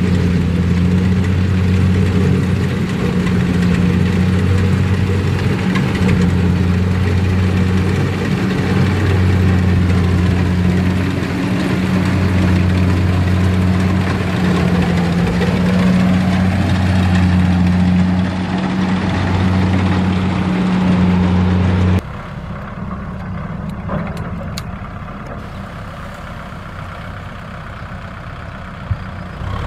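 Kubota M6040SU tractor's diesel engine running steadily at idle, a low even drone. About two-thirds of the way through the sound cuts off abruptly to a quieter, rougher engine sound with a single knock near the end.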